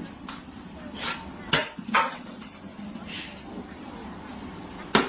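About four sharp, separate knocks or clinks, like hard objects or dishes clattering, over faint room noise.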